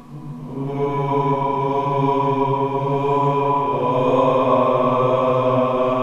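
A long, low, droning howl of the fictional humanoid creature Alatay, chant-like and held on one pitch, then stepping up to a higher pitch about four seconds in.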